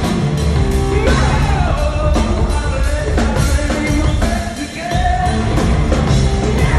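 Rock band playing live, a male singer's vocals over electric guitar and drums, recorded from the audience on a phone.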